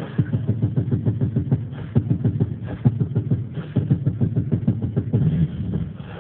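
A person beatboxing: a fast, dense run of mouth-made drum hits with deep kick sounds.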